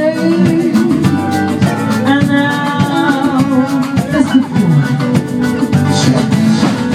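Live band playing Latin-style music: acoustic guitar over a steady percussion beat, with a pitched melody line on top.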